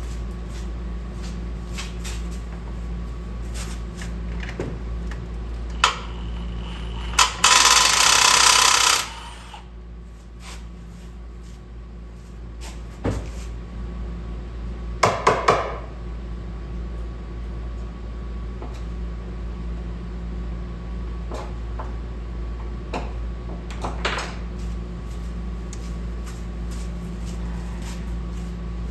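Hand tools clicking and knocking on an engine as parts are unbolted, with a loud noisy burst of about two seconds a quarter of the way in and a quick run of three clicks about halfway, over a steady low hum.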